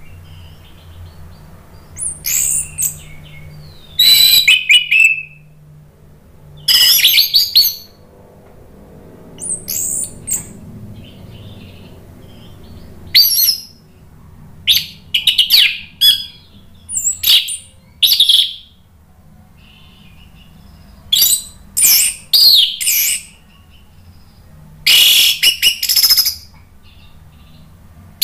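Orange-headed thrush singing: a run of short, loud, high-pitched song phrases, about eight of them, each lasting under a second to about two seconds, with pauses of one to three seconds between.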